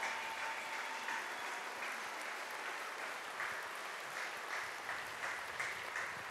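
Audience applauding, a steady patter of many hands clapping with a few louder single claps standing out in the second half.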